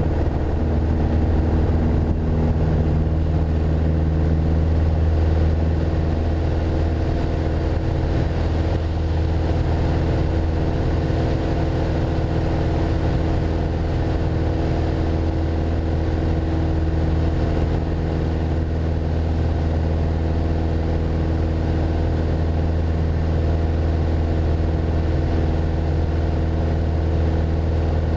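Piper Archer II's four-cylinder Lycoming engine and propeller at takeoff power, running steady and loud in the cabin through the takeoff roll, liftoff and initial climb.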